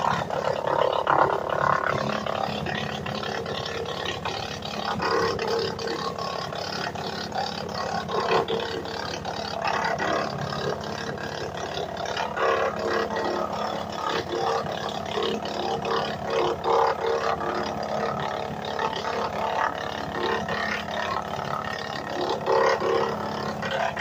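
WM810 tractor-PTO wood chipper chewing through a long sapling pole as it feeds into the hopper, over the tractor engine's steady running. The rough grinding swells every few seconds as more of the pole is drawn in.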